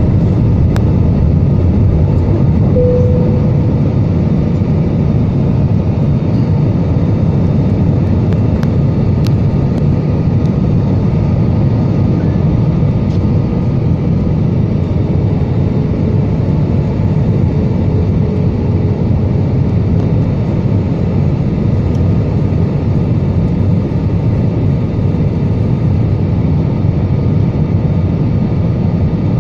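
Steady airliner cabin noise: jet engines and rushing airflow heard inside the cabin on descent, a loud, even rumble. A brief faint tone sounds about three seconds in.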